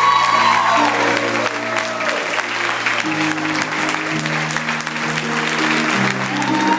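Congregation applauding over background music of slow, held chords that change every second or two.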